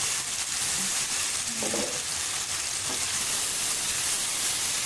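Onion, tomato and green-chilli masala sizzling steadily in an aluminium kadai as a little water is poured in, then stirred and scraped with a long metal spatula.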